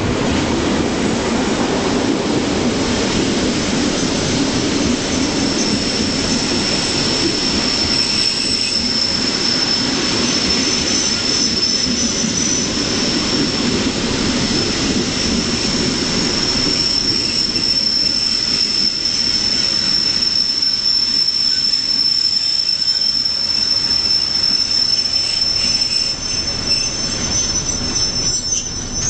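Passenger train moving slowly out of a station: wheels rumbling on the rails, with a steady high-pitched wheel squeal from about five seconds in.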